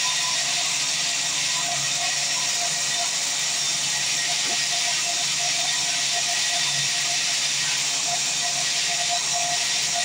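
Vertical bandsaw sawmill running, giving a steady, even hiss.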